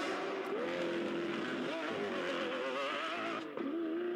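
Lamborghini Aventador's V12 engine revving, its pitch wavering up and down. Near the end the pitch rises steadily as the car accelerates.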